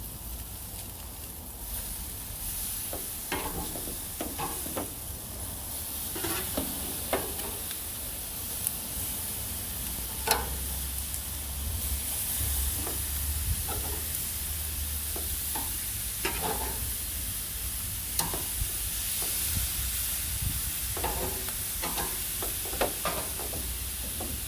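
Pork loin chops sizzling on a hot barbecue grill while they are flipped, with frequent short clicks and scrapes of a metal utensil on the grates. A low rumble runs underneath.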